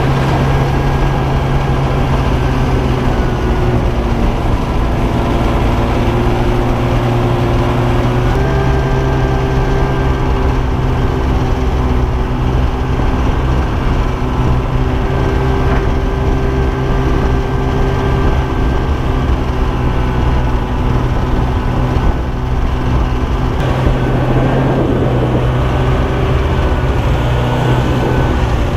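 Snowmobile engine running steadily while riding, a continuous loud drone heard from on board, its pitch shifting slightly a few times as the throttle changes.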